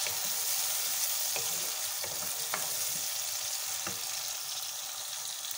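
Sliced onions and ginger-garlic paste sizzling in hot oil in an aluminium pot as a wooden spoon stirs them, with a few light knocks of the spoon against the pot. The paste is being fried after the onions have browned.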